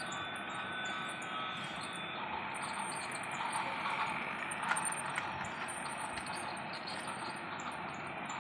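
Battery-powered toy train running around a plastic track, a steady whirring and rattling. Thin electronic tones stop about two seconds in, and there is one sharp click near the middle.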